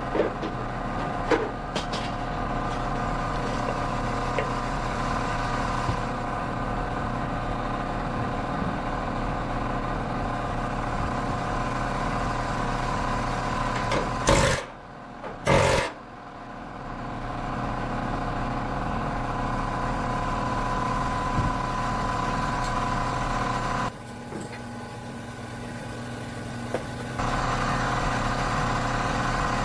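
A machine running steadily with a constant hum, broken by two short, louder bursts about halfway through.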